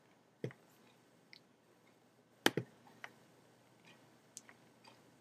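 Scattered computer mouse clicks: a few faint single clicks and a louder double click about two and a half seconds in.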